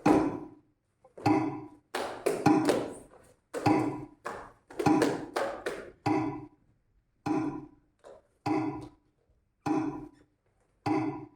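A series of hollow, resonant knocks, roughly one a second, with quicker clusters of strikes in the middle, each ringing briefly before the next.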